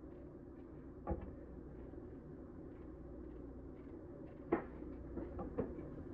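A knife peeling a potato by hand, giving a few faint clicks and scrapes, one about a second in and a cluster near the end, over a low steady hum.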